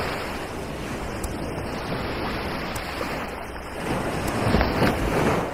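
Surf washing onto a beach: a steady rush of waves that swells louder about four seconds in.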